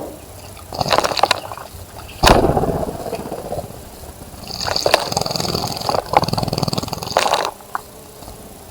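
Birds bathing in a bird bath: bursts of splashing and rapid wing-fluttering in the water, with one sharp, loud splash about two seconds in and a longer spell of splashing in the second half.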